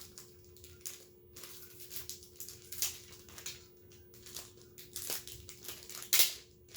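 Packaging of a hanging photo-display set being opened by hand, crinkling and rustling in irregular bursts, with the loudest one near the end.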